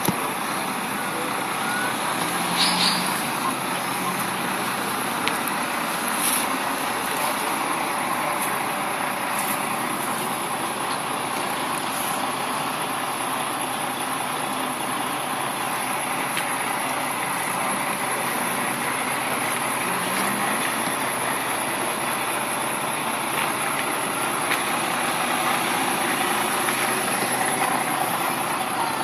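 Truck engines running steadily, with a short high hiss about three seconds in.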